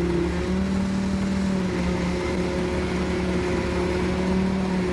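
Diesel engine of a hydra mobile crane running steadily at raised speed while hoisting a load; the engine speed steps up about half a second in and then holds.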